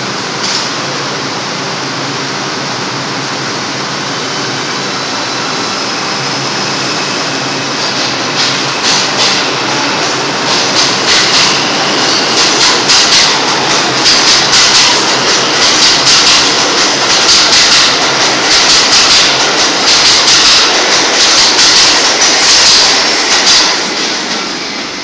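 R142 subway train pulling out of the station and gathering speed. Its wheels clack over the rail joints in a quickening rhythm from about eight seconds in, growing louder as the cars pass, then fading near the end as the train leaves.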